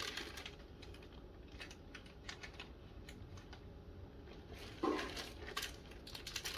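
Light clicks and crinkles of snack packaging being handled, with one duller knock about five seconds in.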